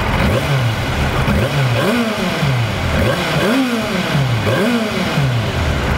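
The 2004 Yamaha YZF-R6's 600 cc inline-four is revved from idle through its stock exhaust. It gets about five quick throttle blips roughly a second apart, and the revs climb to around 6,000 rpm and fall back each time.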